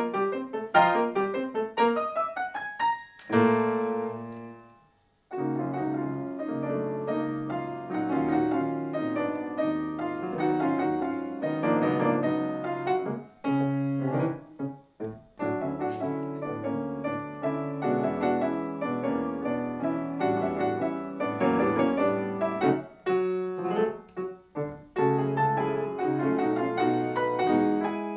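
Grand piano played four-hands by two pianists: quick runs sweeping up and down, a held chord that dies away to a brief silence about five seconds in, then busy chordal playing.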